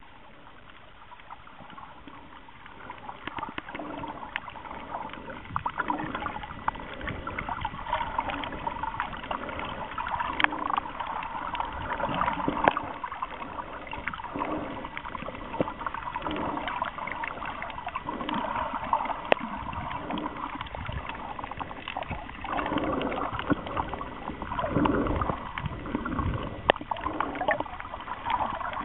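Underwater water noise picked up by the camera: irregular sloshing and gurgling with many scattered sharp clicks, quieter for the first few seconds and then louder.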